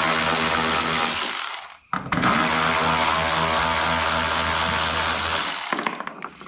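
Milwaukee cordless ratchet backing out the 10 mm bolts that hold a headlight, with a steady motor whine in two runs. The first run stops about a second and a half in; the second runs from about two seconds in until shortly before the end. A few light clicks and knocks follow as the tool is lifted off.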